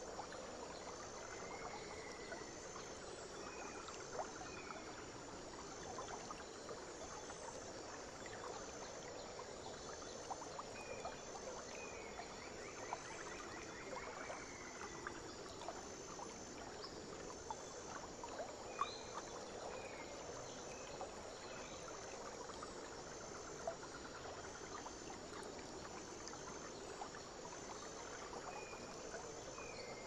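Faint forest ambience: a steady hiss of running water, a high insect call repeating in short even pulses, short falling bird chirps here and there, and a few small clicks.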